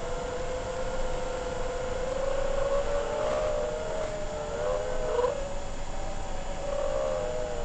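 FPV quadcopter's brushless motors whining at low throttle, several close motor tones wavering up and down in pitch as the quad is steered, with a rush of propeller wash underneath.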